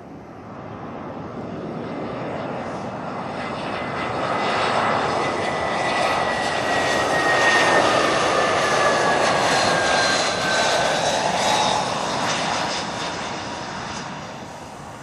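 Jet airliner passing close by. Its engine noise swells to a peak about halfway through and then fades, with a high whine that falls in pitch as it goes past.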